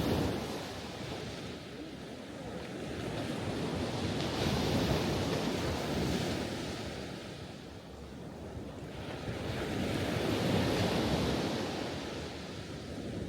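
Ocean waves surging and washing in, rising and falling in slow swells about every five to six seconds.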